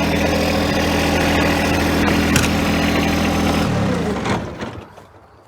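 A John Deere 1025R compact tractor's three-cylinder diesel engine idling, with a single clunk about two seconds in. It is switched off just under four seconds in, and its note drops as it runs down to a stop.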